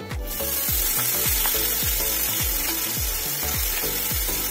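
Chopped fresh fenugreek leaves dropped into hot oil tempered with cumin, ajwain, sesame and asafoetida, sizzling in the pan. The sizzle starts suddenly a moment in and holds steady.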